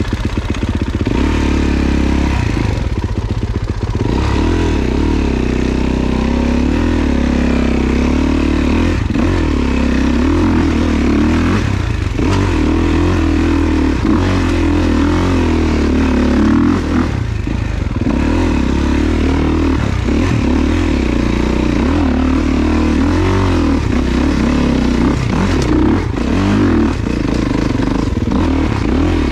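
Four-stroke dirt bike engine revving hard under load on a steep trail climb, its pitch rising and falling with the throttle. Light clattering and scraping from the bike runs underneath.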